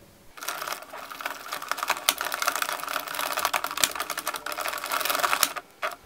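Addi Express circular knitting machine being hand-cranked, its needles clicking rapidly in a dense run as a row is knit. The clicking starts a moment in and pauses briefly just before the end.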